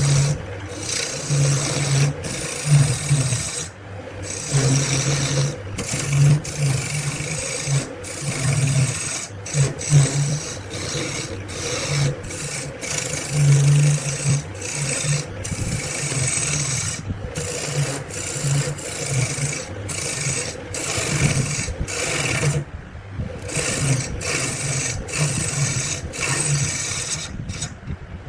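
Wood being worked by hand with a rasping, abrasive tool, in repeated back-and-forth strokes with brief pauses between them.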